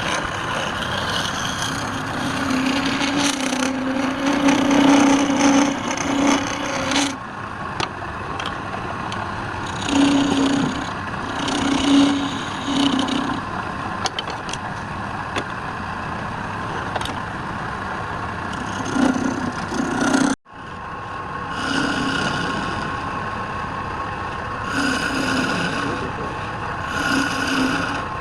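Wood lathe running with a steady hum while a hand-held turning tool scrapes and cuts the spinning workpiece in repeated passes of one to a few seconds each. The sound drops out abruptly for a moment about two-thirds of the way through.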